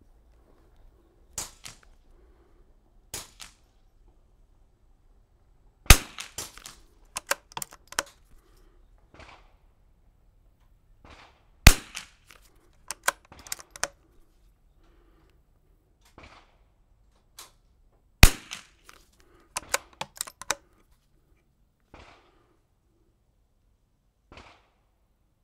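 Three rifle shots from an Anschutz 54 bolt-action .22 LR sporter, about six seconds apart, each followed by a quick run of smaller clicks as the bolt is worked to eject the case and chamber the next round.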